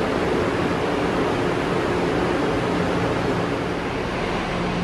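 Steady rushing ventilation and air-conditioning noise with a low hum beside a standing electric high-speed train.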